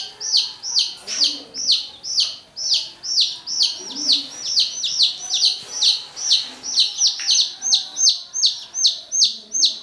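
Baby chicks peeping: a steady run of short, high cheeps, each sliding down in pitch, about three a second and a little quicker near the end.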